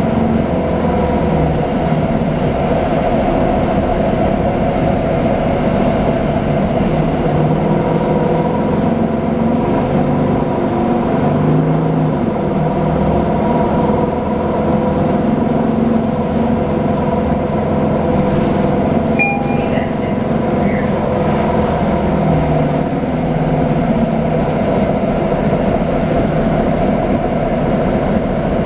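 Cabin of a Nova Bus LFSA articulated city bus running: a steady engine and drivetrain drone with humming tones throughout. A brief high tone sounds about two-thirds of the way in.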